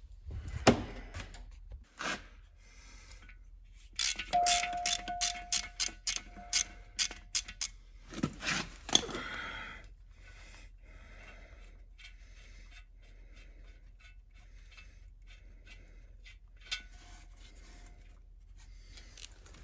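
Metal-on-metal clinks and taps from a tool working at the frozen reverse idler pin inside a tractor's transmission case. A quick run of about ten sharp taps comes a few seconds in, with the metal ringing, then a scrape and quieter scraping and rubbing, with one more ringing clink near the end.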